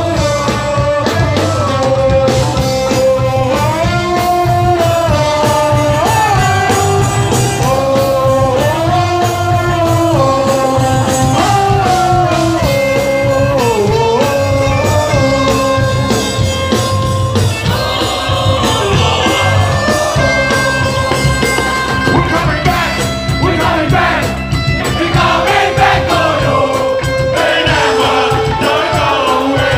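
Live hardcore band playing loud amplified music through a PA, with singing over distorted guitars and drums.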